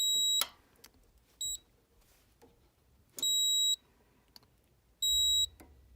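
Electronic piezo beeper giving high, steady beeps: three of about half a second each at uneven intervals, with a shorter one about a second and a half in.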